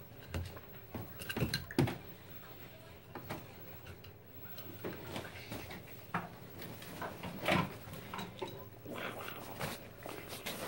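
A raccoon clambering over a wooden bunk bed and onto its sheets: irregular rustles, scrapes and light knocks as its claws work over fabric and wood, loudest about two seconds in and again past the middle.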